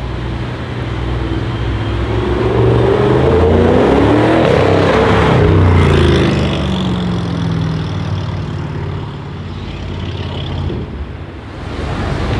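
Audi RS6 C7's twin-turbo V8 with a non-resonated Milltek exhaust accelerating past. The engine note climbs and grows louder, peaks about five seconds in as the car goes by, then drops in pitch and fades away.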